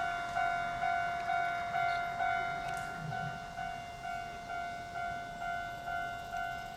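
Japanese railway level-crossing warning bell ringing: an electronic clanging tone struck about twice a second, each strike fading before the next, warning that a train is approaching.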